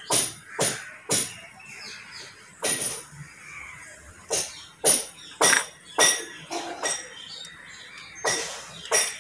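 Hands wearing bangles handling a small round metal box at close range: about a dozen sharp, ringing clinks at irregular intervals.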